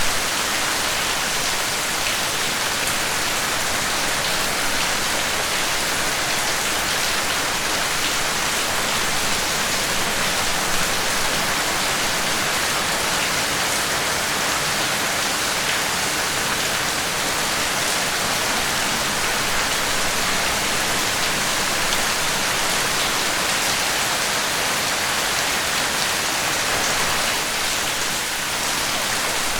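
Steady rain falling, an even hiss of drops with faint scattered ticks.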